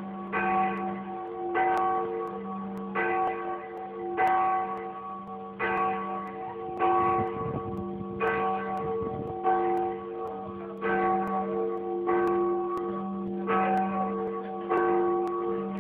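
Church tower bells ringing in a steady rhythm, a new stroke about every one and a third seconds, each tone ringing on into the next.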